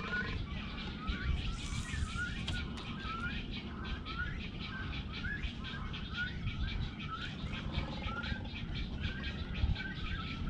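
A bird calling over and over, a short upward-hooked note about every three-quarters of a second, with fast faint ticking above it and a low rumble underneath.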